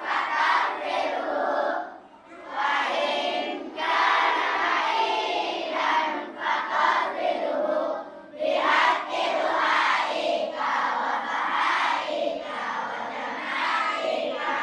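A large group of children's voices chanting together in unison, loud phrases of a second or two with short breaks between them.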